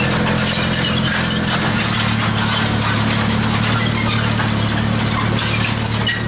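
Tractor engine running steadily, pulling a mounted seed drill through the field, with a scatter of small clicks and rattles from the drill's mechanism and its openers working the soil.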